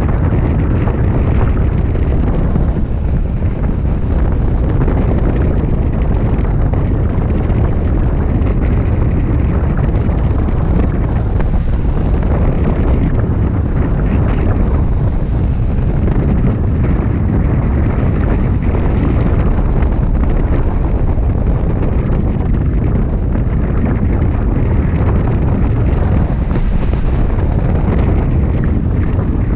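Airflow of a hang glider in flight buffeting the microphone of a glider-mounted camera: loud, steady wind noise, heaviest and deepest in the low end.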